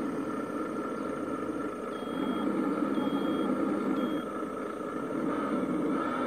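Scratch-built RC rollback tow truck's simulated truck engine running steadily, with a reversing beeper giving three short beeps about a second apart starting about two seconds in.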